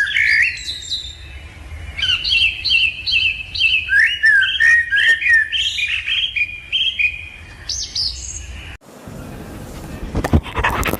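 A small flock of lovebirds chirping: short, shrill, rising calls repeated several times a second. Near the end the chirping stops, and a short burst of scraping and knocking follows.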